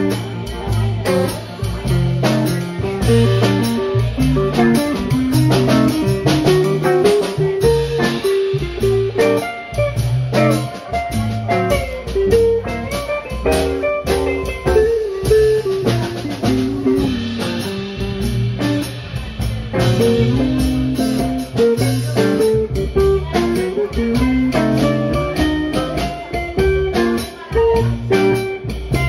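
Small live band playing: electric guitars over upright bass and drums, with a guitar melody moving through changing notes.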